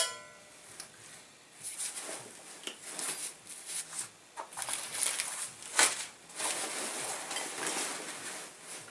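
A metal barbecue grill is set down with a sharp, briefly ringing clank at the very start. This is followed by irregular rustling and scraping as a nylon backpack and its contents are handled.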